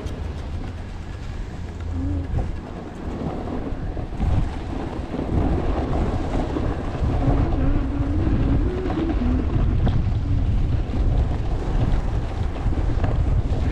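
Wind buffeting the action camera's microphone as the skier gathers speed downhill, with skis scraping over packed, groomed snow; the rumble gets louder about four seconds in.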